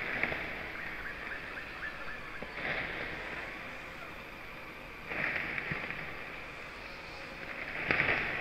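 Vanquish VS4-10 RC rock crawler driving: its electric motor and gears whine up in four short bursts of throttle, about every two and a half seconds, over a steady hiss.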